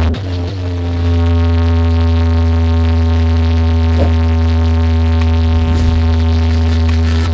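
Electronic music played loud through a large DJ sound-box speaker rig during a speaker check: one long held synth note with heavy bass underneath.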